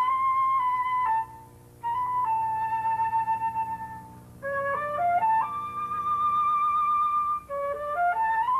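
Solo flute playing a slow melody: quick rising runs of notes lead into long held notes. There are short breaks between phrases, about a second in and again around four seconds.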